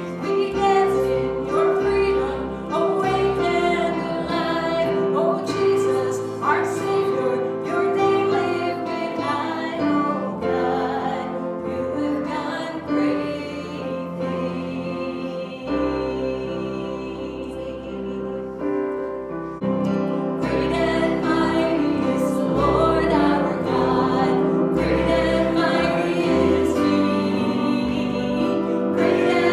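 Worship music: voices singing a hymn over sustained instrumental accompaniment with a bass line.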